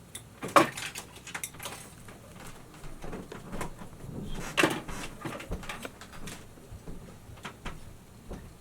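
Sharp clicks and snaps of a copper ground wire being cut and handled with hand tools at an electrical subpanel, with two louder snaps about half a second in and near the middle.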